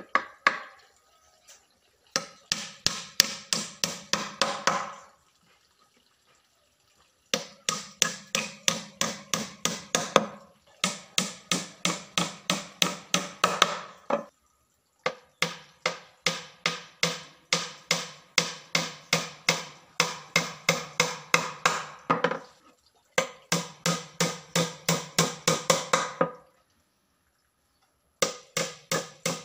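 Hammer driving small nails into plywood panels to join a speaker box: runs of quick, even strikes, about four or five a second, each run a few seconds long with brief pauses between.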